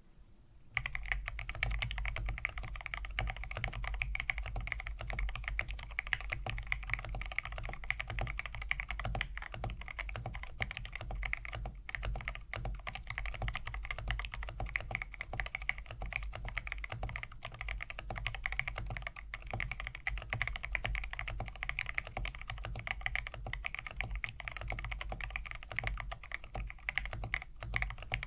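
Continuous fast typing on an Iron165 mechanical keyboard fitted with full aluminum keycaps, a dense stream of keystrokes that starts about a second in.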